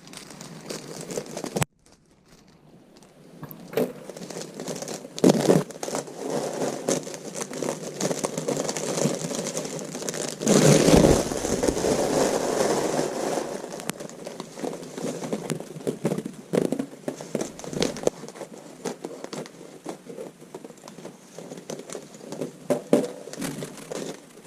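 Crinkling and rustling of packaging being handled, with scattered light clicks and knocks. It is loudest for a couple of seconds about ten seconds in.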